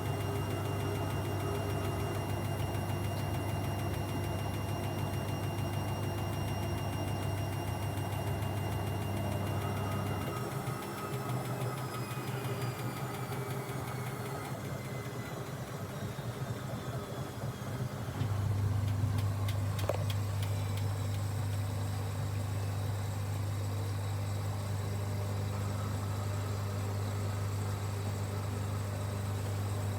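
Washing machine running with a steady motor hum. About ten seconds in the hum changes and a high whine falls slowly in pitch as the motor slows; around eighteen seconds the strong hum comes back, with a single click a little later.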